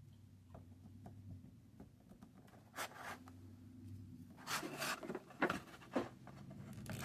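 Hard plastic action-figure parts being handled and pushed together: a few light clicks, then short bursts of plastic rubbing and scraping about three seconds in and again, louder, from about four and a half seconds.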